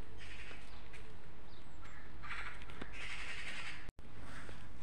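Crows cawing, about five harsh calls in a row over a low steady outdoor background; the audio drops out for an instant near the end.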